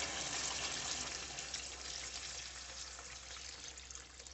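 Mutton stock poured from a jug into a hot pot of fried mutton ribs, hissing and sizzling as it hits the hot fat, with the splash of the pour; the sizzle is loudest at first and dies down gradually as the pot fills.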